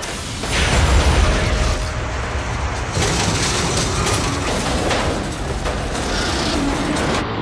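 Action-film sound effects from an aircraft scene: deep rumbling booms over mechanical noise, the rumble swelling loudest about a second in.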